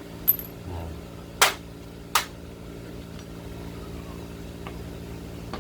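Sharp metallic clinks of a socket wrench and loose metal parts being worked on a motorcycle's drum-brake rear hub, three louder ones in the first couple of seconds and a few faint clicks later, over a steady low hum.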